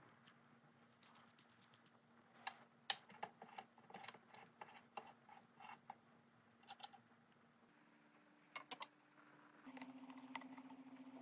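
Irregular light clicks and taps from hand work on small parts, over a steady low hum that steps up slightly in pitch and grows louder near the end.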